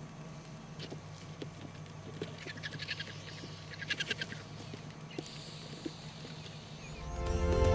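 Vultures squabbling at a carcass, giving harsh, rapid rattling cackles in two bursts, about two and a half and four seconds in, over a low steady hum. Music fades in near the end.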